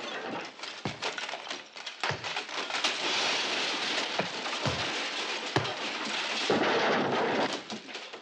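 Fistfight sound effects: a continuous crashing clatter broken by several sharp thuds and cracks of blows and splintering wood.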